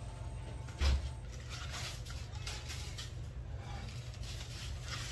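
Soft crunching and rustling of crushed hot chips as a gloved hand presses a cheese stick into the bowl of crumbs, with a single thump about a second in, over a steady low hum.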